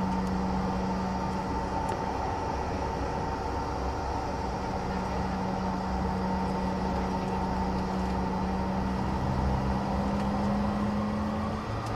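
Cabin noise of a CRJ-700 with its rear-mounted General Electric CF34 turbofans idling: a steady hum with a low drone and a thin whine above it. Right at the end the whine starts to rise as the engines begin to spool up for the takeoff roll.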